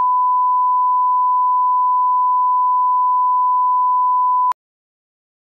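Steady 1 kHz line-up test tone played with colour bars: one unchanging pitch that cuts off suddenly with a click about four and a half seconds in.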